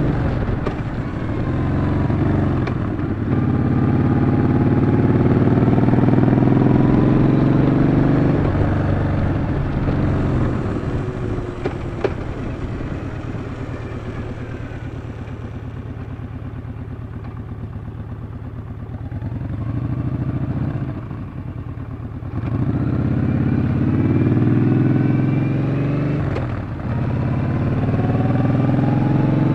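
Yamaha XV950 (Bolt) air-cooled V-twin under way, pulling through the gears with a rising note and a brief dip at each shift. In the middle it runs quieter and lower, off the throttle, before picking up and accelerating again near the end.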